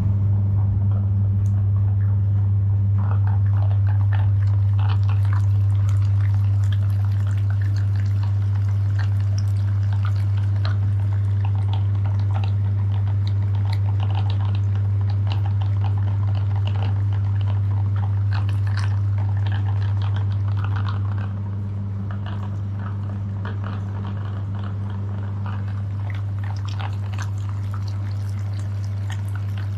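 Electric meat grinder motor running with a steady low hum, with irregular crunching and crackling as chocolate bars are crushed through it. The hum drops slightly in level about twenty seconds in.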